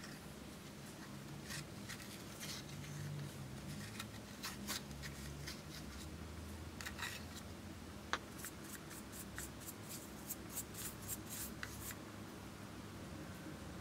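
Metal spatula scraping and crumbling pressed powder makeup out of a plastic compact: soft scratchy scrapes and light clicks, quickening into a rapid run of short scrapes in the later part, with one sharper click just past the middle.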